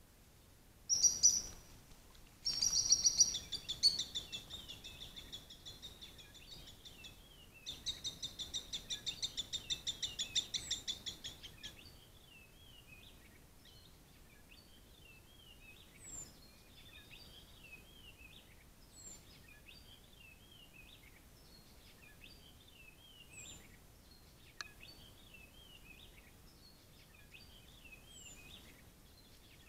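Bird song: a few loud high chirps in the first seconds and a fast trill from about 8 to 12 s, then quieter repeated warbling phrases with a high thin note every few seconds.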